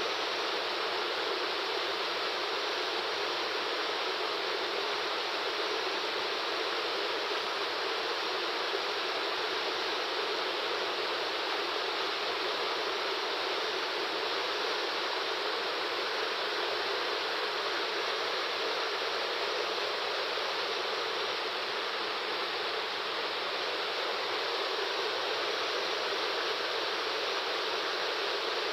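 Waterfall water rushing in a steady, unbroken hiss.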